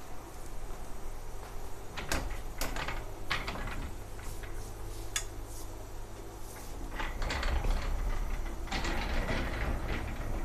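Tile showroom display panels being handled: a few separate sharp clicks and knocks, then a denser clatter late on as a hinged, metal-framed display panel is moved.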